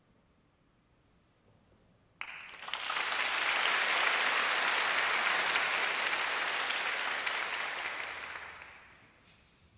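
Audience applauding in a concert hall: it starts suddenly about two seconds in, holds steady, then dies away near the end.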